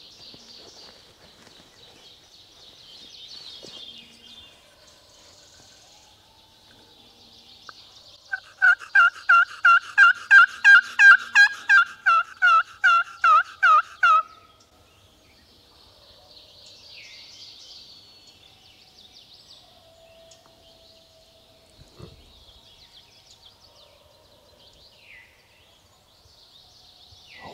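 Turkey yelping: a loud run of about fifteen hen-style yelps, a little over two a second, lasting about six seconds and starting about eight seconds in, the last yelp drawn out.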